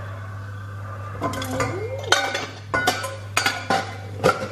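Whole spices (fennel, cardamom, cinnamon and cloves) frying in hot oil in a stainless steel kadai, with several sharp metallic clinks from about a second in over a steady low hum.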